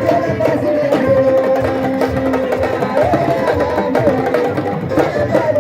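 Music with a busy hand-drum rhythm under a wavering, gliding melody.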